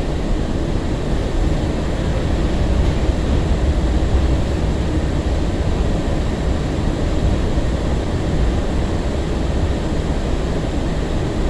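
Breda LRV3 light-rail car running between stops, heard from inside the car: a steady low rumble of wheels on rail and car body.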